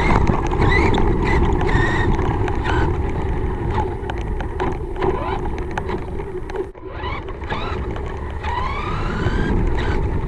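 Small RC car running: a steady motor hum and rolling noise with wind on the microphone, dipping briefly about two-thirds of the way through.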